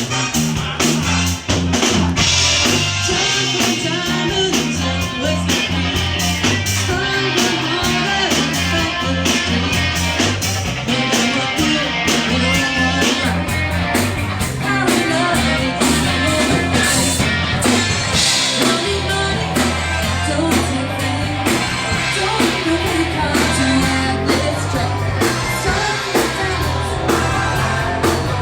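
Live rock band playing during a sound check: electric guitar, bass and drum kit, with some singing.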